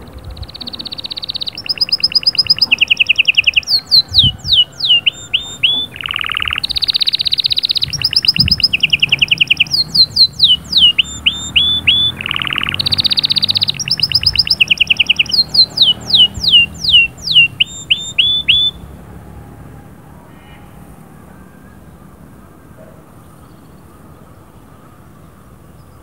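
Canary singing: long rolling trills of rapid repeated notes that switch between a higher and a lower pitch, broken by runs of quick falling whistled notes. The song stops about three-quarters of the way through.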